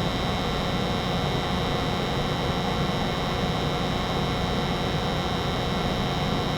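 American Standard 90% gas furnace running with its burners lit and circulating blower on: a steady hum and rush of air with a few thin high tones held constant.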